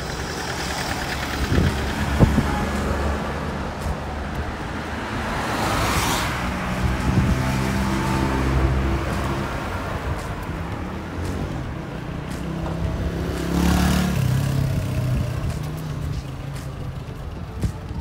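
Road traffic: cars driving past on a paved street, with two vehicles passing close about six and fourteen seconds in, each swelling up and fading away, over a steady low engine hum.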